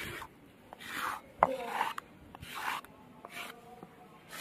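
Ground mustard paste being scraped and rubbed across a sil-batta grinding stone, in about five short rasping strokes roughly a second apart, with a sharp knock about one and a half seconds in.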